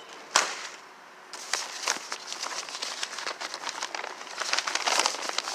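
Brown paper bag rustling and crinkling as it is handled, a dense run of crackles starting about a second in, after one sharp knock near the start.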